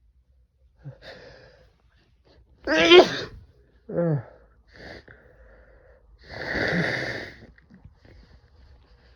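A man sneezing, brought on by chhikni snuff: two sharp, pitched gasps about three and four seconds in, then one long sneeze about six seconds in.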